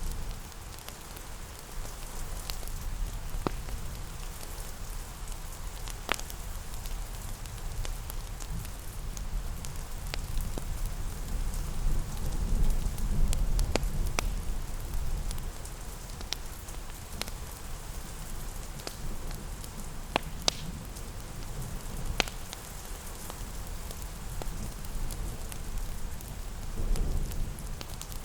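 Steady rain pattering, mixed with a crackling fireplace that gives scattered sharp pops. A low rumble swells up about halfway through and again near the end.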